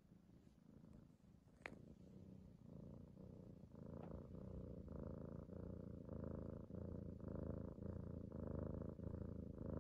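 White kitten purring, a rhythmic pulsing of about two beats a second that sets in a couple of seconds in and grows louder. A single sharp click comes just before it.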